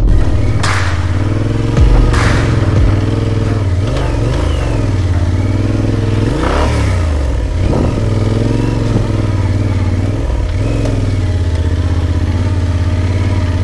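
Large adventure motorcycle engine running while riding, the revs rising and falling, with a few knocks and thumps from the bike in the first seconds and again about midway.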